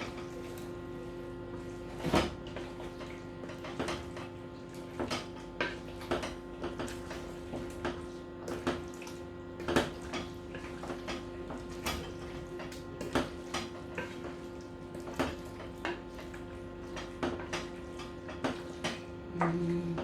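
A spoon knocking and scraping against a cooking pot at irregular intervals as chicken pieces are stirred through a thick tomato-and-spice base, over a steady hum.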